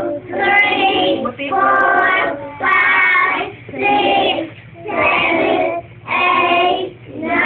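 Group of young children chanting the numbers in unison in a slow sing-song, about one number a second.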